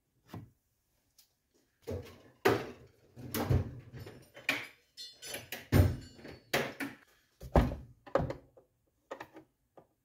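Irregular knocks and clatter of hand tools being picked up, rummaged and set down on a wooden workbench while a screwdriver that fits the compressor's screws is sought, ending with a screwdriver being put to a screw in the plastic housing.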